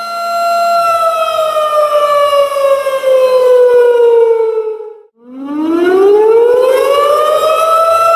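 Tornado warning siren, the air-raid type, wailing: a steady high tone slides down for about four seconds, drops out briefly about five seconds in, then rises back up to full pitch and holds.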